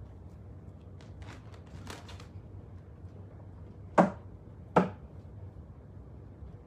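Soft scuffles, then two sharp knocks just under a second apart: a rabbit's feet landing on the roof of a wooden hideout as it hops across.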